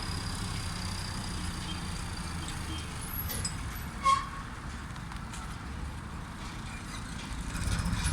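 Steady low rumble of background noise, with a short, sharp high-pitched chirp about four seconds in.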